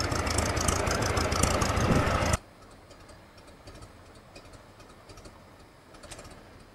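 Ford Model T four-cylinder petrol engine of a small narrow-gauge locomotive running with a fast, even clatter. About two and a half seconds in, the sound drops abruptly to a much quieter background with faint scattered ticks.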